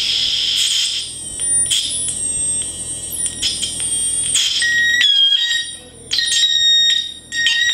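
Velleman steam train sound generator kit playing through a small loudspeaker: shrill electronic whistle tones that jump between pitches, with a falling glide a few seconds in and many sharp clicks. The sound cuts out briefly twice near the end.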